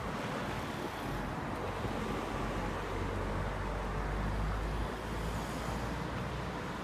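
Street traffic: cars and scooters passing close by on a multi-lane road. A low rumble swells through the middle and drops away about five seconds in.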